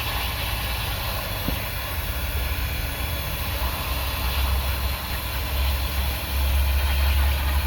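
Hot-air welding gun blowing a steady hiss over a low rumble as it melts and fuses the seam of a PVC pool liner sheet, getting a little louder near the end.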